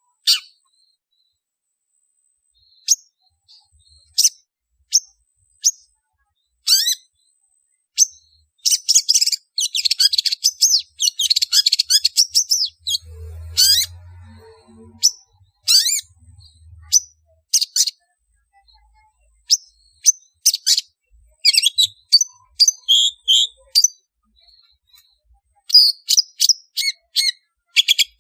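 Long-tailed shrike calling: scattered short, sharp, harsh calls, with a dense run of rapid chattering about a third of the way in and another quick series of calls near the end.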